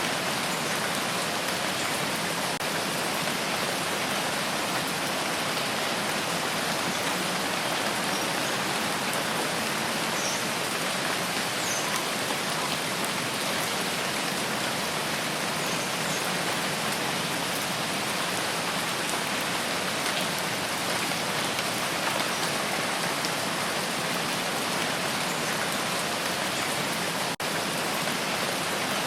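Steady rain falling, an even hiss of many drops pattering on surfaces, with a momentary dip in level near the end.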